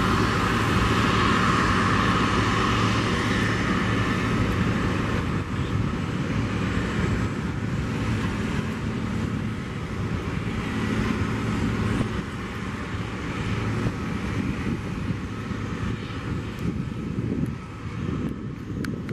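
Airbus A330 jet engines at taxi power: a steady whine over a low rumble that slowly fades as the airliner taxis past.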